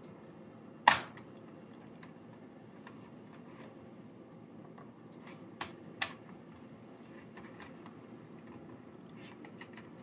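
Plastic clips of an MSI GL62M 7RD laptop's bottom cover snapping loose as the panel is pried up by hand: one sharp click about a second in, two smaller clicks close together past the middle, and a few faint ticks near the end.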